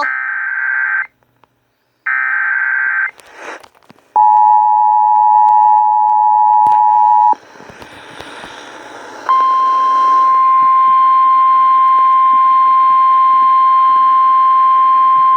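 Emergency Alert System tones coming over an FM radio. Two harsh digital data bursts of the alert header sound in the first three seconds. They are followed by about three seconds of the two-tone attention signal and a couple of seconds of hiss. A single steady tone then starts about nine seconds in and runs on.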